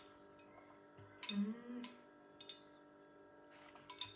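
Soft background music plays throughout, with a few light, sharp clinks of ice against a glass as iced coffee is sipped through a straw and the glass is handled. A brief hummed 'mm' comes about a second and a half in.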